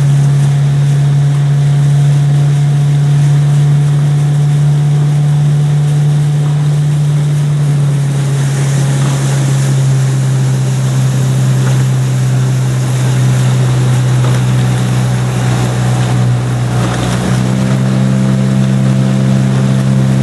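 Outboard motor of a motor launch running steadily at a constant speed, a loud low hum whose pitch shifts slightly about eight seconds in and again near seventeen seconds.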